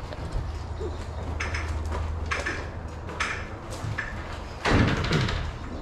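Fiberglass extension ladder being pulled off its wall brackets and slid out: a run of scrapes and clunks, with the loudest knock near the end.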